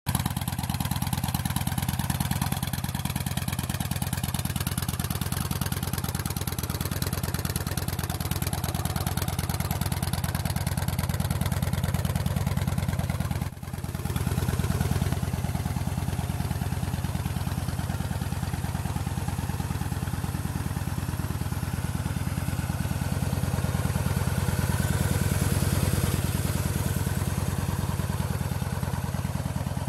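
2006 Yamaha Road Star Warrior's 1670 cc air-cooled V-twin idling steadily through custom aftermarket exhaust pipes, with a brief dip in level about halfway through.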